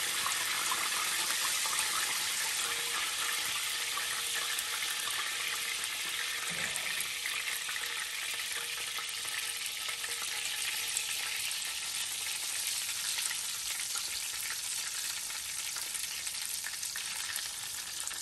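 Flour-dredged chicken thighs frying in hot canola oil in a frying pan: a steady, dense sizzle with fine crackling, easing slightly toward the end.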